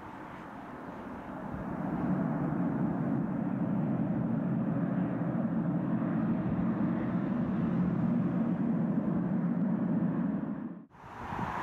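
Lockheed P-3 Orion's four Allison T56 turboprop engines running on the runway, a steady drone of engines and propellers that grows louder about a second and a half in and holds, then cuts off abruptly near the end.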